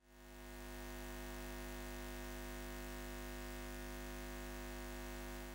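A steady electric hum with a hiss above it, fading in at the start and holding an even pitch throughout, in the manner of a buzzing neon sign.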